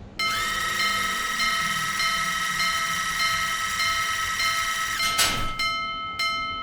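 Japanese electronic railroad crossing bell ringing in a repeating pulse over a sustained high tone. About five seconds in a brief rushing whoosh passes, after which the bell strikes go on about two a second.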